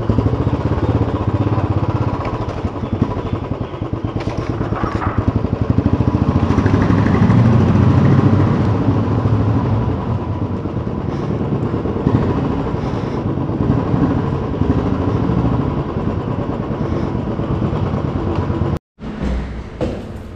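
Motorcycle engine running as the bike is ridden into a covered parking garage, growing louder about seven seconds in. Near the end it cuts off suddenly, followed by a few short knocks.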